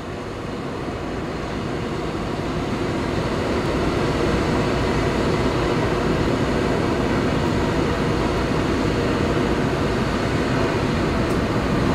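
Drilling rig machinery running while a stand of drill pipe is hoisted out of the well: a steady mechanical drone with a few faint steady tones, swelling over the first three seconds and then holding level.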